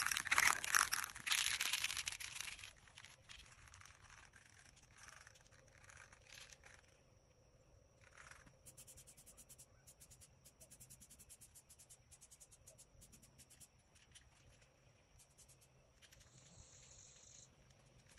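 Aerosol spray-paint can hissing in short pulsing sprays for the first few seconds. After that only faint outdoor ambience remains, with a run of rapid faint clicks in the middle.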